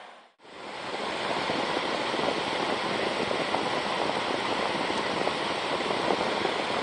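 Axial 1238 120 mm high-speed fan running, blowing air through a wet radiator as a steady rushing noise. It fades in within the first second.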